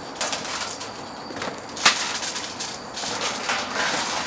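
Scuffling and cardboard-box rustling from wrestlers on a trampoline mat, with one sharp smack just under two seconds in.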